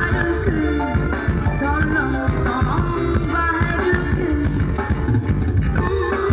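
Loud music blasting from a truck-mounted parade speaker stack: a melody over heavy bass.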